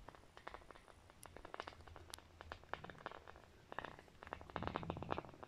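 Faint, irregular clicks and rattles of a dropped stone knocking against the rock walls as it falls down a deep blast borehole, growing denser about four seconds in.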